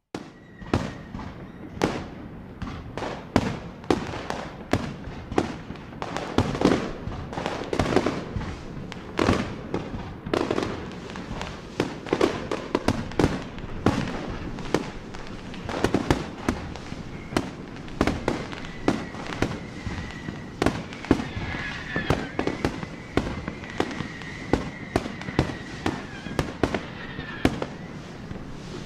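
Firecrackers going off in a dense, irregular string of sharp bangs, often two or three a second, over a continuous crackling hiss; it starts abruptly. A faint thin whistle runs through the later part.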